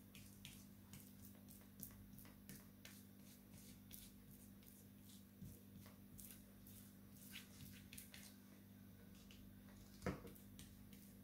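Faint scratchy ticking of a paintbrush dabbing glue over the faceted resin drills of a finished diamond painting, with one louder knock about ten seconds in. A steady low hum runs underneath.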